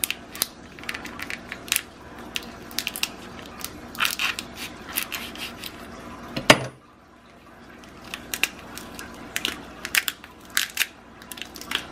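Cooked lobster tail shell crackling and snapping as it is cut down the middle with a knife and pried apart by hand: a run of small sharp clicks and cracks, with one louder sharp knock about halfway through.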